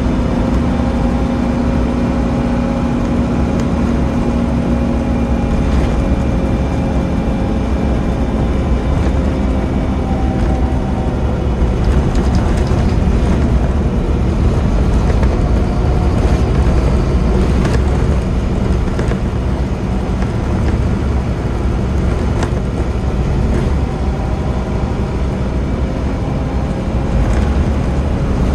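Scania OmniCity double-decker bus running at speed, heard from inside the passenger saloon: its 9-litre five-cylinder diesel engine and road rumble. The engine note eases slightly and fades into road noise over the first ten seconds, with scattered short rattles from the body.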